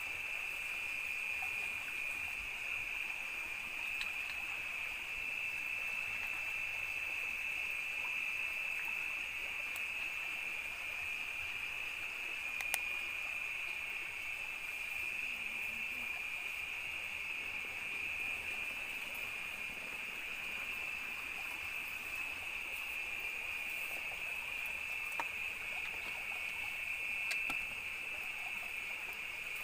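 A night insect chorus, a steady high-pitched trill holding without a break, with a couple of faint clicks.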